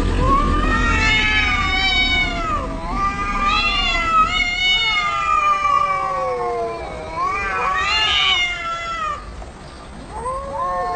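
Domestic cat meowing in long, drawn-out, yowling calls, each sliding up and then falling in pitch, three of them with short pauses between and a fourth starting near the end.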